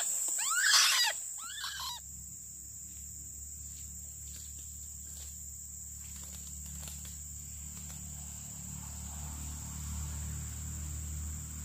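Two loud, arching bird calls of a white-breasted waterhen in the first two seconds, over a steady high drone of crickets; after that only the insect drone continues, with a faint low rumble beneath it.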